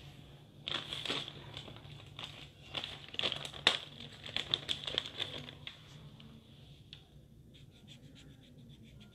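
Crinkly rustling with many sharp clicks for about five seconds, art supplies being handled. Near the end, faint quick scratching strokes of a colour pen on paper as colouring begins.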